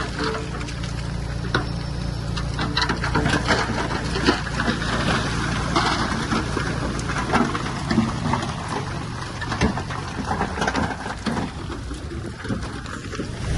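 Komatsu D31P crawler bulldozer's diesel engine running steadily under load, with scattered clanks and knocks of tracks and stones as it pushes rock.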